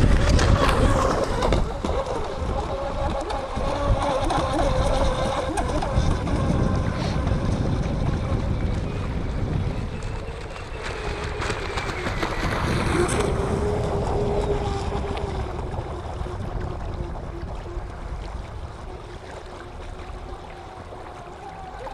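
Electric radio-controlled speedboat running across the water: a whining motor over the hiss of the hull and spray, shifting in pitch and fading away toward the end.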